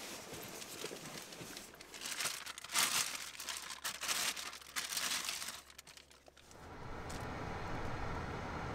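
Clear plastic bag crinkling and crackling in loud bursts as a camera wrapped in it is handled. About two-thirds of the way in, this gives way to the steady low rumble of the car's engine running, heard from inside the cabin.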